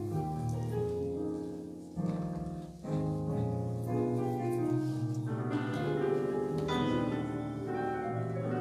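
Keyboard music of slow, sustained chords that change every second or so, with a brief dip about two seconds in.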